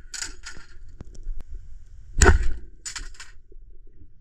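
Speargun fired underwater: a sharp crack about two seconds in, followed by a few quieter clacks, during test shots with the double-flopper shaft after the bottom flopper was bent to cure the gun shooting low.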